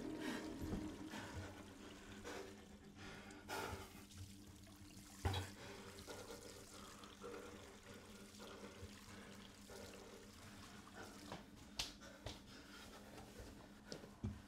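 Faint, steady low hum with a few soft knocks scattered through it.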